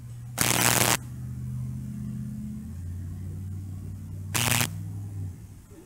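A distant motor vehicle's engine hums steadily, its pitch dropping about halfway through and fading near the end. Two short, loud bursts of hiss cut in, the first about half a second in and a shorter one past the two-thirds mark.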